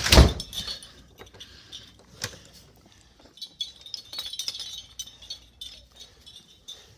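A loud thump right at the start, then scattered sharp clicks and a spell of light clinking and rattling of small hard objects in the middle.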